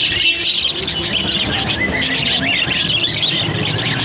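Many parrots chirping and chattering at once, a dense run of short high chirps and quick rising and falling calls.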